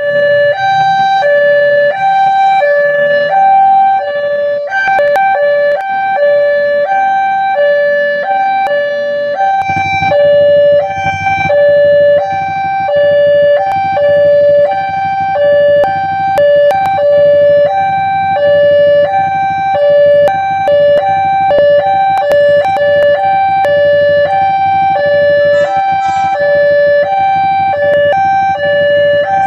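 Railway level-crossing barrier alarm sounding an electronic two-tone siren: a high and a low tone alternate steadily, each held about half a second. This warns that a train is approaching and the crossing gates are closed. A low rumble joins about ten seconds in.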